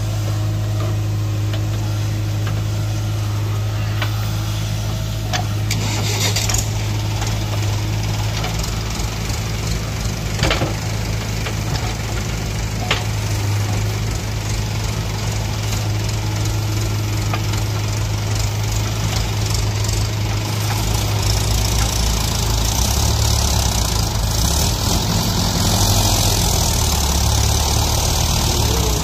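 JCB 3DX backhoe loader's diesel engine running steadily under load, with a few knocks from the bucket working the soil. In the last third the engine sound changes and grows a little louder.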